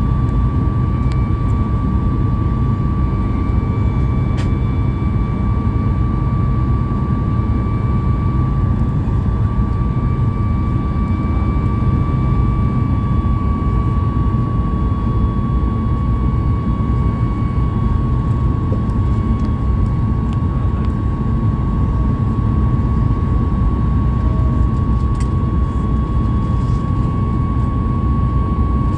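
Boeing 737 MAX 8's CFM LEAP-1B jet engines running at high power, heard from inside the cabin: a steady, loud low roar with a steady high-pitched fan whine over it.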